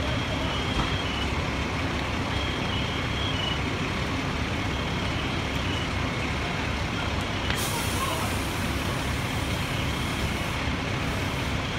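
Fire engine's diesel engine running steadily, with a hiss of air that starts about two-thirds of the way through and lasts about three seconds.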